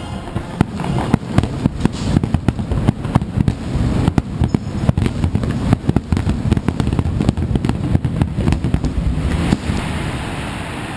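Fireworks bursting in a dense, rapid barrage of booms and crackles that stops suddenly about nine and a half seconds in.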